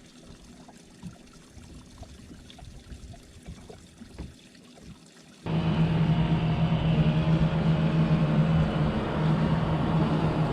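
Faint small knocks and water sounds, then about halfway through a steady engine drone cuts in suddenly at full level and keeps running evenly with a low hum.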